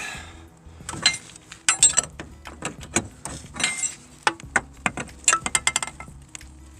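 Metal tools and hose hardware clinking and knocking in irregular, sharp strikes, with a quick run of clicks about five seconds in.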